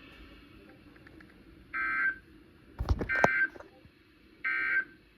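Emergency Alert System end-of-message data bursts from a weather radio broadcast: three short, identical buzzy digital tone bursts about a second apart, signalling that the severe thunderstorm warning is over. A single sharp thump comes just before the second burst.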